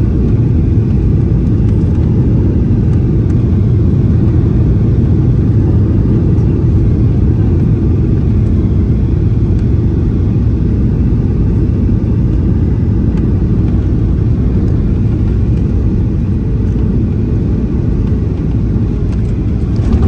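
Cabin noise of a Boeing 737-800 on final approach: a steady, loud low rumble of airflow and engines heard from a window seat over the wing. A few faint clicks come near the end, and the noise grows louder right at the end as the jet reaches the runway.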